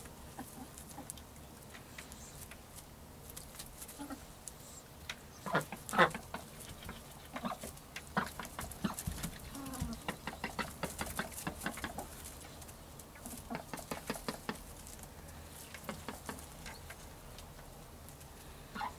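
Ducks calling softly, with one louder call about six seconds in, over rustling and rapid clicking in straw bedding.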